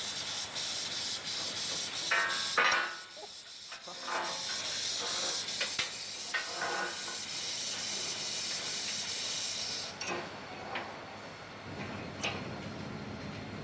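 Gas hissing through a CNC plasma cutting torch fed by a Victor UltraCUT 400XT, a steady high-pitched hiss that breaks off briefly about three seconds in and stops suddenly about ten seconds in.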